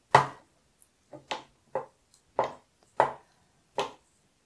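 Glass nail polish bottles knocking against each other and the clear acrylic rack as they are slid and set down on its shelf: about seven short, sharp clicks at uneven intervals.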